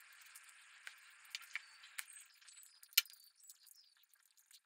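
Faint handling noise from a hand-held quadcopter frame being tilted: scattered light clicks and clinks of its plastic and metal parts, the loudest about three seconds in.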